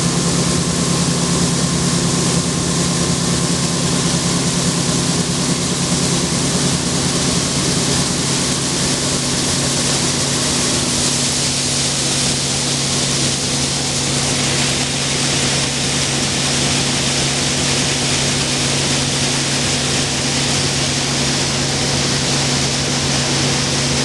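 International 1480 axial-flow combine running steadily at working speed while shelled corn pours in a steady hissing stream from its unloading auger into a steel dump-truck box. The hiss of the pouring grain grows stronger about halfway through.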